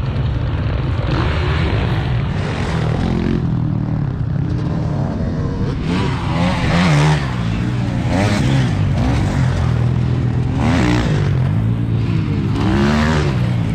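Several motocross bikes' single-cylinder engines revving hard. The pitch climbs and drops several times as the bikes accelerate up through the gears, with more than one engine heard at once.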